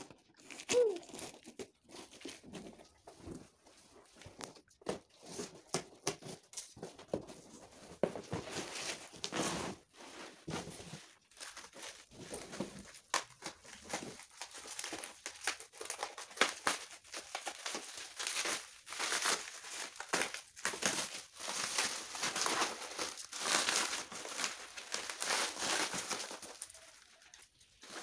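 Plastic film and bubble wrap crinkling and tearing as they are pulled off packed furniture panels, with scissors cutting carton tape at the start. The crinkling is densest in the second half.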